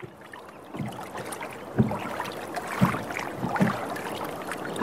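Water slapping and lapping against a boat's hull in a calm sea, with irregular low splashes over a steady wash. It fades in from silence over the first second.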